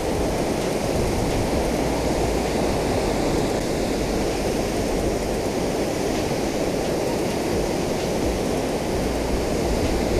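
Water pouring over a concrete dam spillway and churning into the rough pool below: a deep, steady rush with no letup.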